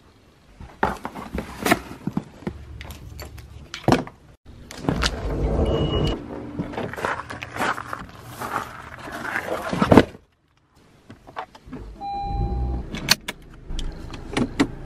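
Handling noise of someone walking out to a car and getting in: keys jangling, footsteps and scattered knocks and clicks, with a short electronic beep near the end.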